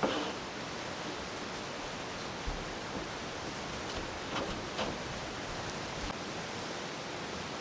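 A steady rushing hiss, with a few light knocks or clacks, one at the start and a couple about four to five seconds in.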